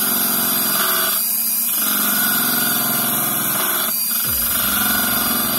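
Unimat SL lathe's motor running at low speed while a carbide-tipped hand tool cuts the spinning wood dowel. The cutting sound breaks off briefly about a second in and again about four seconds in.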